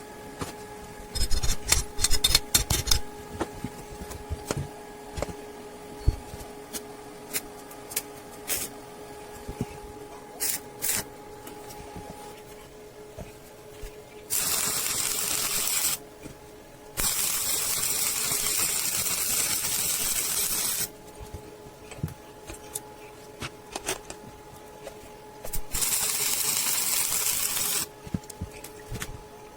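Three bursts of steady, high hissing, each one to four seconds long, over a steady hum; a quick flurry of clicks and knocks comes about a second in.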